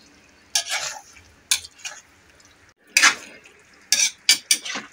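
A metal spatula stirring a thick coconut-milk stew of jackfruit in a metal wok: a string of short wet scrapes and clinks against the pan, closer together in the second half.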